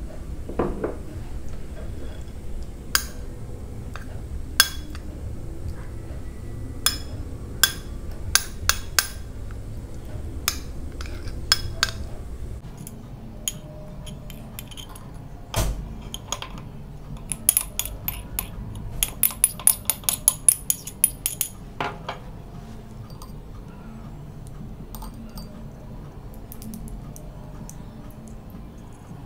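Metal spoon clinking and scraping against a porcelain plate while stirring and scooping a wet mash of grated ginger and garlic, in separate sharp clinks at first, then a rapid run of clicks a little past halfway.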